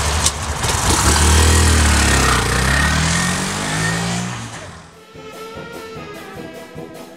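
Honda Grom 125's small single-cylinder engine accelerating away, its pitch climbing and dropping as the revs rise and it changes gear, fading out about five seconds in. Brass-band music then takes over.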